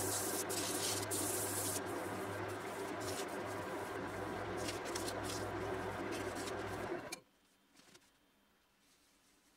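Wood lathe running with sandpaper held against the spinning wooden bowl: a steady motor hum under a scratchy sanding hiss, the hiss strongest in the first couple of seconds. About seven seconds in the sound cuts off suddenly, leaving near silence.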